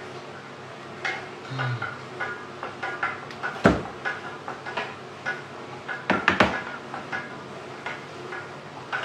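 Kitchen utensils clinking and knocking while sauce is stirred: a metal spoon tapping in a glass bowl and a wooden spatula working in a stainless-steel saucepan. The clinks come irregularly, with a sharp knock about a third of the way in and a quick cluster of louder knocks about two-thirds in.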